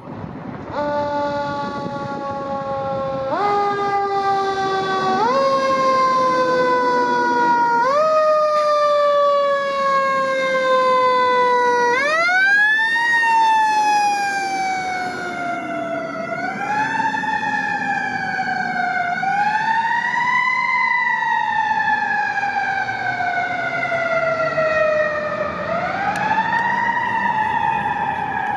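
Fire engine's siren starting about a second in, its pitch jumping up in quick pushes and sliding slowly down after each, then rising and falling in long wails: the engine is responding to an emergency call.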